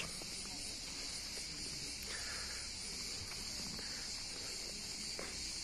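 Steady, high-pitched chorus of cicadas in the trees, running without a break.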